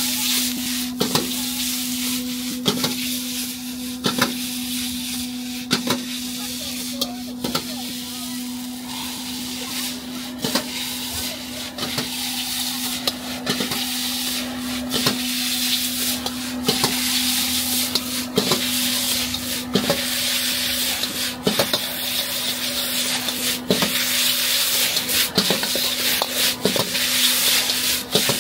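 Rice noodles and egg stir-frying in a hot wok, sizzling steadily, with a metal spatula knocking and scraping against the wok about every second, more often near the end. A steady low hum runs underneath.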